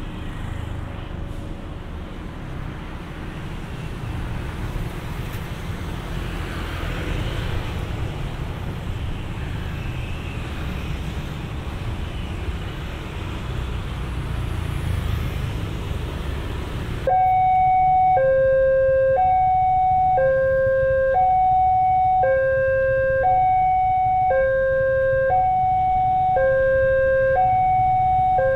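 Steady rumbling road and vehicle noise. About two-thirds of the way through, a two-tone electronic warning signal starts suddenly, switching between a high and a low pitch about once a second and repeating evenly.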